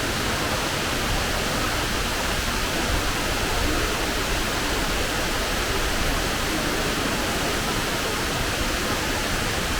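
Fukuroda Falls, a large waterfall, rushing steadily: an unbroken, even wash of falling water.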